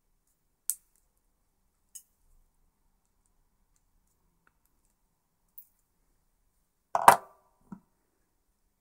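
Flush cutters snipping a transistor's leads off a circuit board: three sharp snips, about a second in, at two seconds and near six seconds. Near the end comes a louder short clatter and a small knock as the board is handled.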